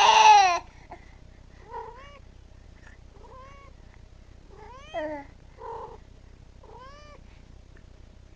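A baby's loud cry breaks off about half a second in. It is followed by a domestic cat's short, soft meows, about six of them spread over the following seconds, each one rising and falling in pitch.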